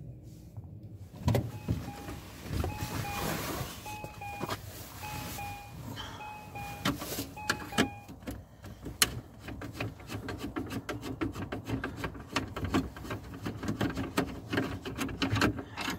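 An electronic two-note beep, stepping slightly down in pitch, repeats about once a second for some six seconds, likely the car's warning chime with the driver's door open. After that come scattered clicks and knocks from a screwdriver and hands working at the plastic trim under the steering column.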